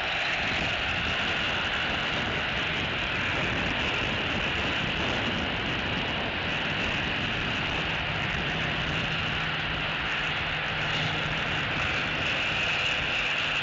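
Steady road-traffic noise mixed with wind, with a faint engine hum from a passing vehicle for a few seconds past the middle.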